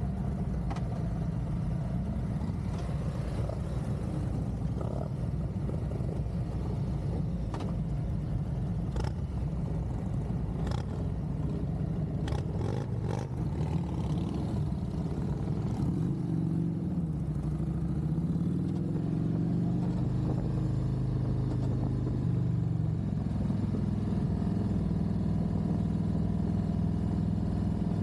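Harley-Davidson V-twin motorcycle engine running while riding. Its pitch rises and falls about two-thirds of the way through as the bike changes speed, with a few sharp knocks in the middle.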